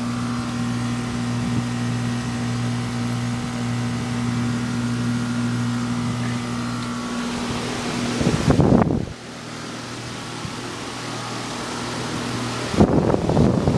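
Bryant Legacy series central air conditioner condenser running: a steady compressor hum under the even rush of the condenser fan. Two brief rumbling bursts cut across it, about 8 seconds in and again near the end.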